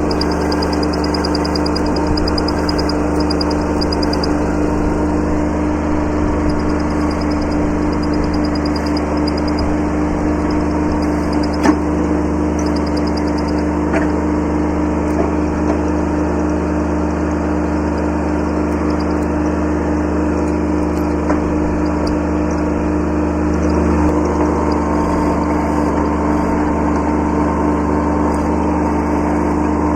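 Kubota B7100 subcompact tractor's three-cylinder diesel engine running at a steady speed, with one sharp knock about twelve seconds in.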